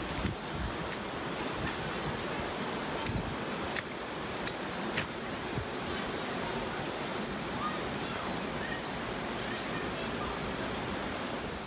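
Steady rushing outdoor ambience, with scattered faint clicks and a few brief faint high notes.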